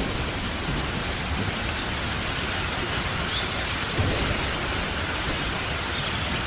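Steady light rain falling, an even hiss, with faint high chirps in short runs of three. A brief low thud comes about four seconds in.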